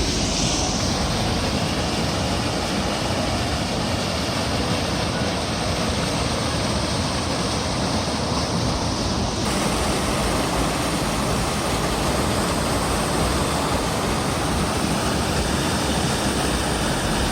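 Waterfall rushing steadily, with a sudden shift in tone about halfway through.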